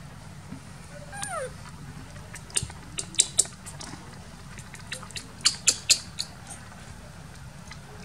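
A baby macaque gives one short falling squeak about a second in. Sharp clicks and taps follow in two quick clusters, around the third and sixth seconds.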